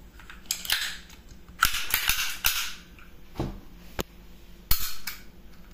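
Makarov pistol's action worked by hand: short metallic sliding sounds, a dull knock, then a few sharp clicks, the loudest near the end. This is the safety lever being flicked off and the trigger dry-fired as a check shot, with the magazine already out.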